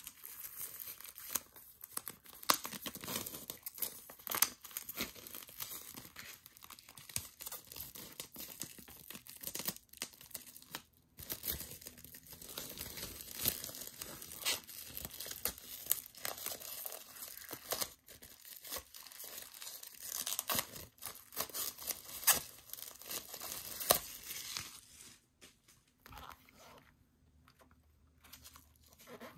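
Clear plastic shrink wrap being torn and peeled off a CD album: a dense run of crinkling and crackling that dies away a few seconds before the end.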